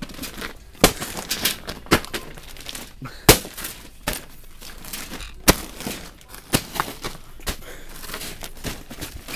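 Plastic-wrapped pillows and bedding being knocked off store shelves onto the floor: a string of sharp knocks and thuds with crinkling plastic packaging between them.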